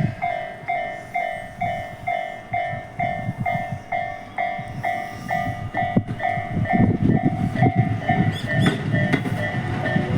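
Japanese railway level-crossing alarm bell ringing, a clear tone struck about twice a second, each stroke fading, until it stops about eight seconds in. Under it a Tobu Railway train passes over the crossing, its wheels rumbling louder in the second half.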